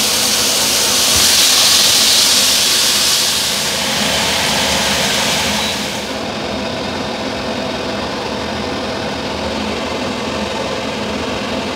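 Frying pans sizzling: fish fillets frying in oil, with a sauce stirred in a small pan beside them. The sizzle cuts off suddenly about six seconds in, leaving a steadier, quieter hum.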